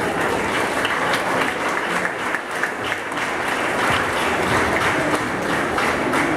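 A crowd applauding: many hands clapping together in a steady, dense clatter.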